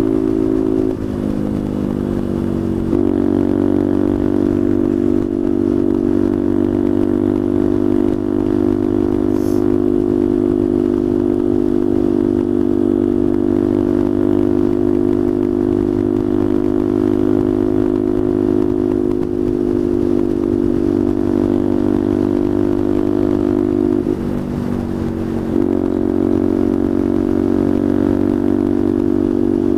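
Motorcycle engine running steadily at road speed as the bike is ridden. The revs dip and then pick back up twice: about a second in and again about 24 seconds in.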